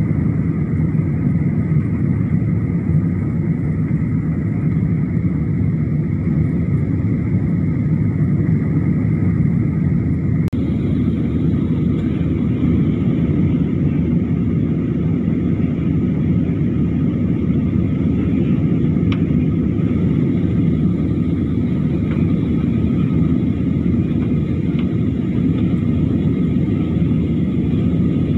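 Steady in-flight cabin drone of a Boeing 737 airliner: jet engine and airflow rumble, with a single click about ten seconds in.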